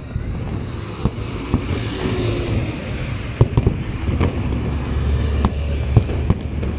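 Fireworks going off in irregular sharp bangs. Under them runs the steady low rumble of a city bus's engine as it drives past close by, heaviest near the end.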